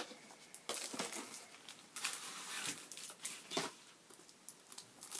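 Eyeshadow palette packaging being handled and opened by hand: scattered rustling and crinkling with a few light clicks.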